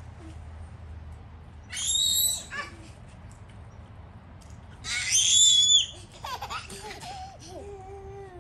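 A toddler's very high-pitched squeals, twice: about two seconds in and again around five seconds, each under a second long. These are followed by softer babbling in a lower child's voice.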